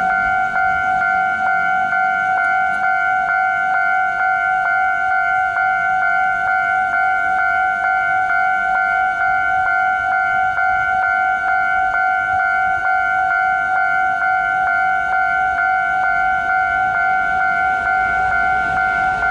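Railway level-crossing warning bell ringing with the gates down, a steady high ringing tone pulsing about three times a second. It signals that a train is approaching.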